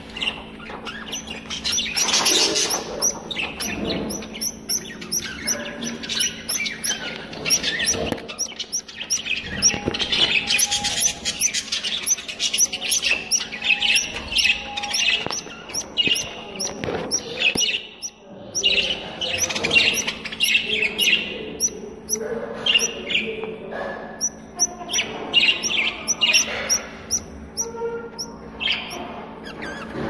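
Budgerigars chattering, a dense run of quick high chirps and warbles with a short lull about two-thirds of the way through. A low steady hum runs underneath.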